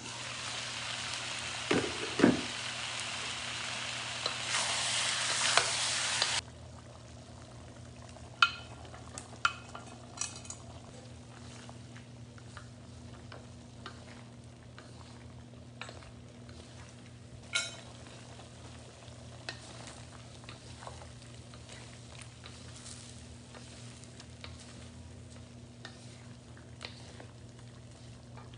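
Chicken sizzling loudly in a hot wok on high heat, with two sharp knocks about two seconds in as the lid comes off. The sizzle then cuts off abruptly to quieter frying, with scattered clicks and scrapes of spatulas against the wok as chicken and bell pepper are stirred. A steady low hum runs underneath.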